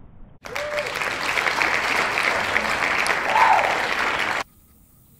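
Crowd applause laid over as a sound effect, with a short cheer near the end. It starts abruptly about half a second in and cuts off sharply about four seconds later.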